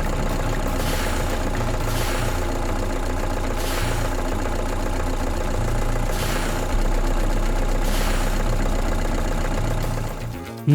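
An engine running steadily at idle, with a low, even hum. It dips in level just before the end.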